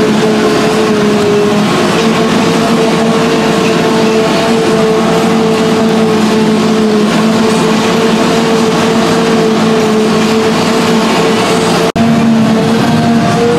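Multirotor drone's propellers and motors humming steadily at a constant pitch, heard from the drone itself. The sound drops out for an instant near the end, then resumes unchanged.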